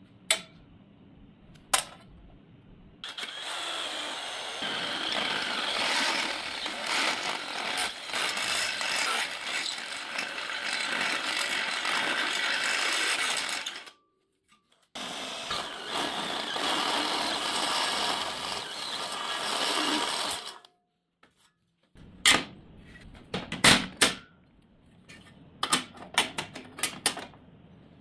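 Power drill with a step drill bit boring through a steel plate: one long run of about ten seconds, a short stop, then a second run of about five seconds. Near the end, a series of sharp metallic knocks and clanks as the steel piece is handled on a metal bench.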